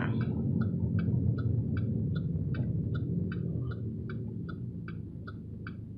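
Car turn signal ticking steadily, about two and a half ticks a second, inside a Chevy Malibu's cabin over the low hum of the engine and road.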